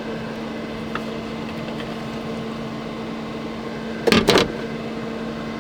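A steady mechanical hum with a constant low tone, broken about four seconds in by a brief clatter of a few sharp knocks.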